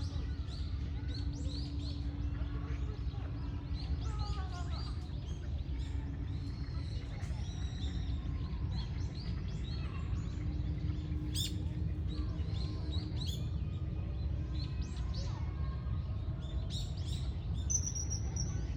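Common kingfisher calling: many short, high chirps repeating through the stretch, over a steady low background rumble.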